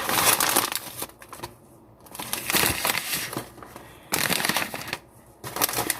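Popcorners snack chip bags crinkling as they are handled, in several rustling bursts with short pauses between.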